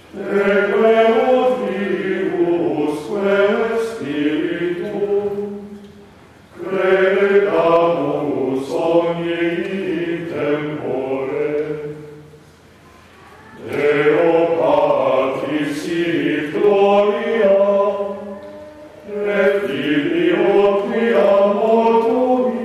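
A choir singing plainchant in one melodic line, in four long phrases with short pauses for breath between them.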